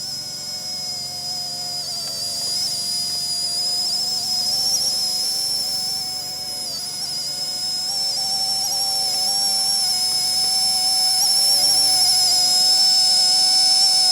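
Small electric RC helicopter (RC ERA C123 EC135) hovering and flying close by: a steady high-pitched motor and rotor whine that wavers slightly and grows louder as the helicopter comes nearer, loudest near the end.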